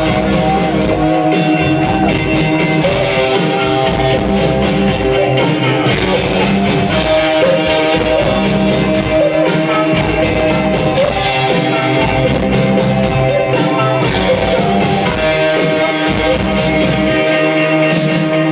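Live rock band playing loud: electric guitars, bass and drums with singing. Near the end the drums stop and held guitar notes ring on.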